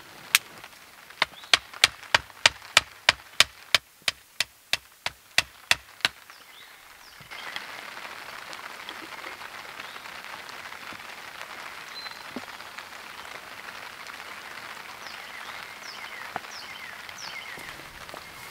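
A quick run of about fifteen sharp knocks, roughly three a second, over the first six seconds. Steady rain then sets in abruptly about seven seconds in and keeps falling.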